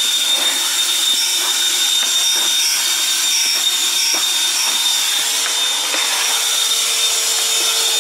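Vacuum cleaner running steadily with a high, even whine, with occasional light clicks.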